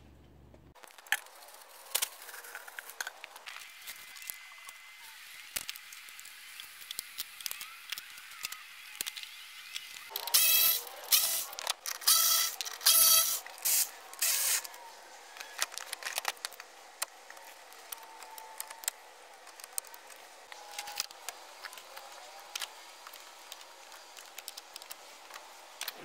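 Hand tools and parts being handled while work starts in a truck's engine bay: scattered clicks and scrapes, with a cluster of loud rasping noises about ten to fifteen seconds in. The engine is not running.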